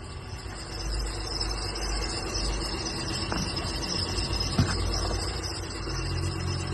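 Honda Pilot 2016's 3.5-litre V6 engine running with an abnormal engine noise and a high steady hiss, with a couple of sharp knocks midway. The noise is the sign of a failing bearing shell.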